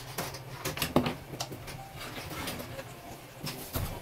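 Light, scattered clicks and taps of a metal fork working food in a frying pan on a gas stove, with soft kitchen clatter.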